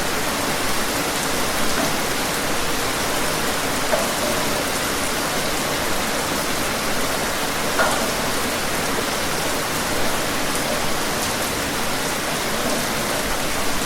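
Steady rain falling outdoors, an even hiss of rain with scattered individual drops, and a slightly louder drop about eight seconds in.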